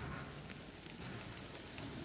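Micro Ace N gauge Keio 9000 series model train running on the track: a faint, steady crackle of small irregular clicks from the wheels on the rails, over a low rumble.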